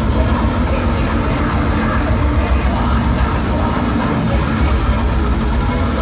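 Melodic death metal band playing live: distorted electric guitars over bass and drums, loud and dense without a break, with a heavy low end.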